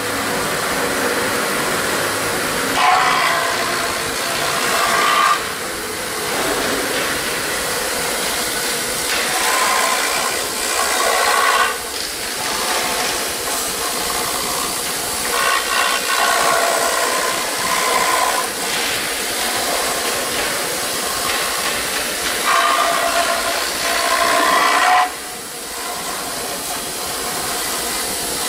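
4-axis CNC router's spindle and milling bit cutting EPS foam: a steady hiss with a whining tone that comes and goes and shifts every few seconds.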